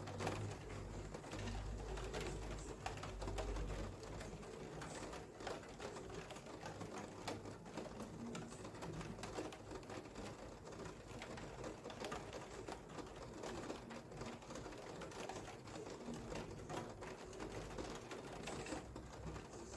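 Rain dripping and tapping in quick, irregular ticks, with a bird cooing now and then.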